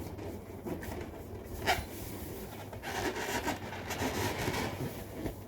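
An inflated balloon being rubbed by hand, giving rubbing squeaks: one short sharp squeak a little under two seconds in, then a longer stretch of rubbing in the second half.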